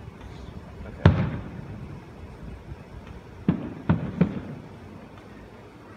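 Distant fireworks shells bursting: four sharp bangs with echoing tails. The loudest comes about a second in, and three more follow in quick succession around three and a half to four seconds in.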